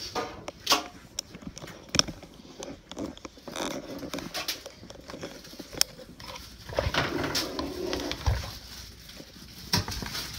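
A dog whining, over a run of sharp knocks and clinks from dishes and utensils being handled.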